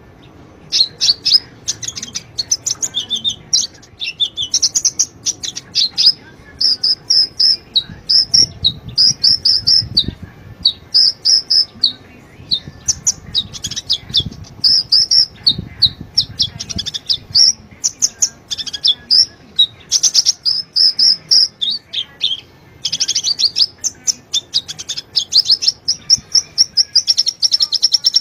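Sunbird song: fast, high, thin chirping trills repeated almost without a break, played as a lure recording to coax a caged sunbird into singing.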